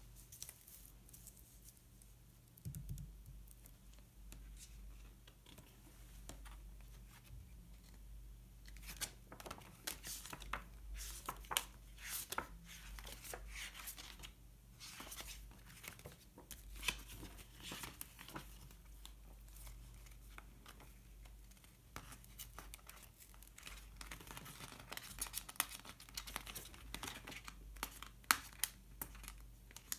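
Faint handling of paper and sticker sheets: stickers peeled from their backing and paper rustling, with scattered light clicks and scratches.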